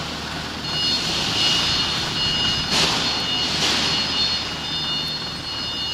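Forklift engine running under the driver's control while it handles a load, with a steady high-pitched whine joining about half a second in and two short hisses around the middle.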